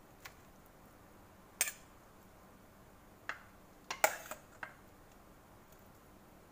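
A metal ladle clinking against a stainless-steel pot and a ceramic bowl while serving noodle soup: about six short, sharp knocks, the loudest a quick cluster about four seconds in.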